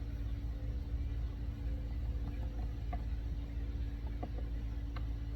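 Steady low hum in the background, with a few small clicks of a tool working the screws deep inside a car door panel about three, four and five seconds in.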